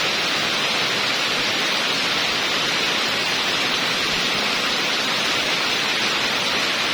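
Heavy rain pouring down, a steady even hiss that does not let up.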